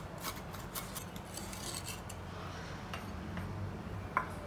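Kitchen utensils scraping in quick strokes that fade out, then a single sharp metallic clink about four seconds in.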